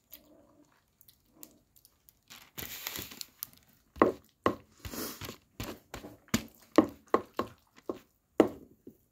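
Eating sounds close to the microphone: a fork scraping and knocking in a plastic microwave ready-meal tray, crinkling of plastic film, and chewing. The sounds get busier from about four seconds in, with a string of short sharp clicks and knocks.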